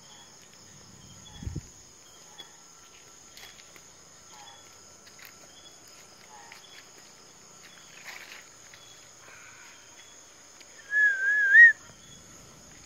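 Night-time cricket chorus: a steady high trilling with short chirps repeating about once a second, and a low thump about a second and a half in. Near the end a loud, wavering whistle sounds for well over half a second, its pitch wobbling up and down.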